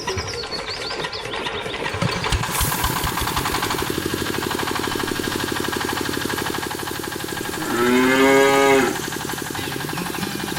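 A steady, fast mechanical rattle, like a small motor running, goes on throughout. About eight seconds in, a cow moos once for about a second, a single pitched call that rises slightly and then drops away.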